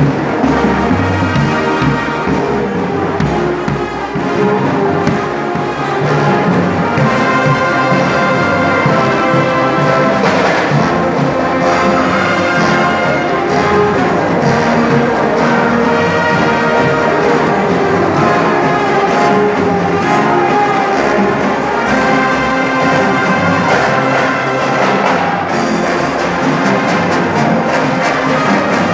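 Marching band playing: a brass section with sousaphones over bass drums and percussion.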